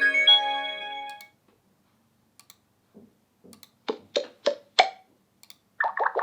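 Xiaomi POCO F2 Pro ringtones. A melody of overlapping tones fades out about a second in. After a pause of over two seconds, the next tone starts with four short ticks about a third of a second apart and a quick cluster of clicks near the end.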